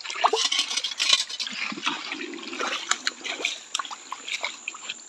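Water splashing and pouring onto a gold pan to rinse its black-sand concentrate, with scattered small clicks and patters throughout.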